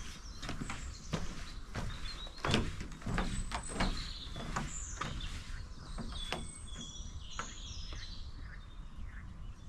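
Footsteps of a person walking on a trail, a step roughly every half second to second, with small birds chirping and singing high above them.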